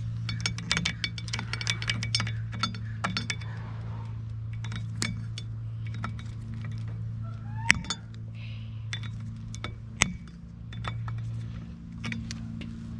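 Needle-nose pliers clinking and scraping against a stainless steel cotter pin in an outboard propeller's castle nut as it is worked out: a quick run of small metallic clicks over the first few seconds, then a few sharp single clicks. A steady hum runs underneath.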